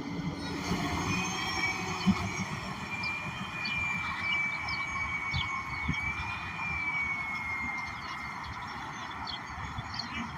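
Interior ride noise of a Gillig BRT Plus transit bus on the move, a steady rumble, with a high, slightly wavering squeal that sets in about a second in and fades out after about seven seconds.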